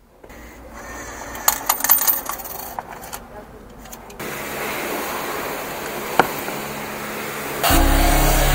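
Tokens clinking as they drop into a self-service car-wash machine. Then the wash bay's pump starts with a steady hiss, and about three-quarters of the way through the high-pressure foam lance sprays loudly onto a motorcycle.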